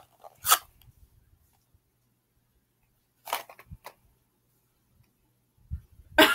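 Plastic wrapping on a small toy box crinkling and tearing in short bursts: one sharp rip about half a second in, a few quick crinkles a few seconds later, then a soft thump near the end.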